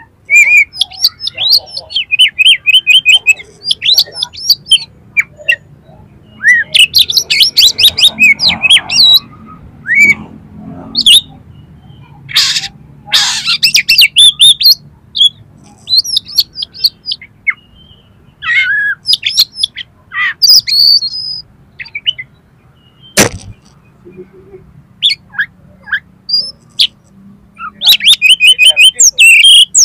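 Oriental magpie-robin (kacer) singing loudly in quick bursts of high chirps and rapid trills, with a few harsh, rasping calls in between. A single sharp click comes about three-quarters of the way through.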